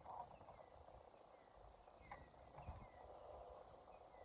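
Near silence: faint outdoor ambience, with a faint click about two seconds in.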